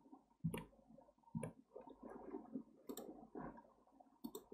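Scattered, irregular clicks of a computer mouse and keyboard, about a dozen, quiet, over faint desk and handling noise.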